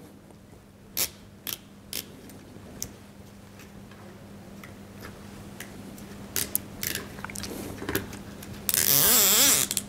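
Plastic cable ties handled and threaded through small holes, with scattered light clicks and taps. Near the end a nylon cable tie is pulled through a locking head: a loud ratcheting zip about a second long whose pitch wavers with the pull.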